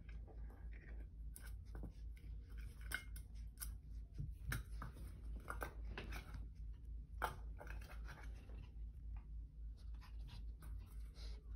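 Irregular scratchy clicks and scrapes as puppies paw, nose and bite an empty metal dog food can on carpet, over a steady low hum.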